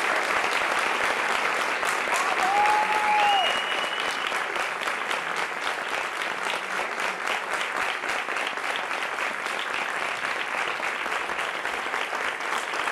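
Theatre audience applauding steadily, with a couple of short cheers rising above the clapping about two to three seconds in.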